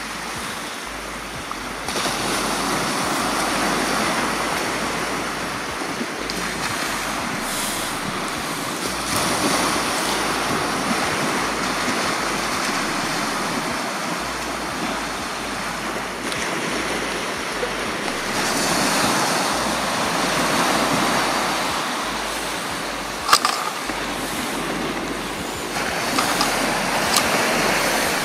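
Surf washing onto a sandy Mediterranean beach, rising and easing in swells every few seconds, with one sharp click about three-quarters of the way through.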